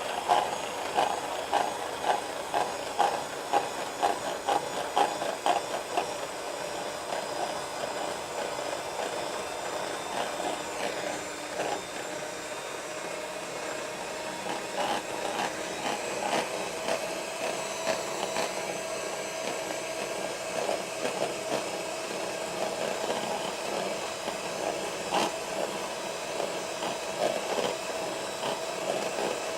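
Electric beater running steadily on its lowest speed setting, whipping cream in a small bowl, with a rattling of clicks in the first few seconds.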